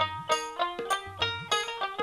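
Instrumental background music in a folk style: a plucked string instrument playing quick repeated notes over a low drum, with about three strong beats a second.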